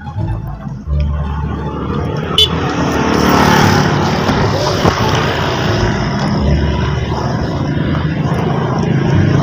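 Motorcycle and scooter engines running as the bikes pass on the road, a steady engine drone with a wash of traffic noise that swells a few seconds in.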